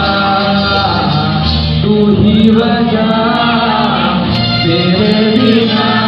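A man singing a song into a microphone over instrumental backing music, amplified through a sound system.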